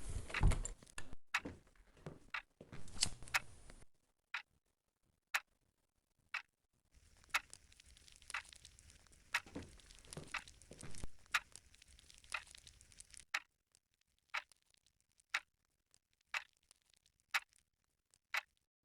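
Clock ticking steadily, about one tick a second, with a few irregular knocks and rustles in the first few seconds.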